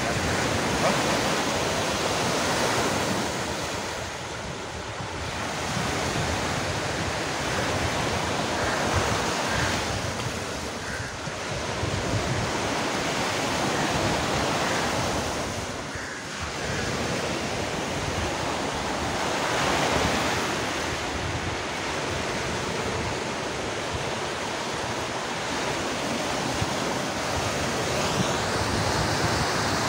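Sea waves breaking on the shore close by: a steady wash of surf that swells and ebbs every several seconds.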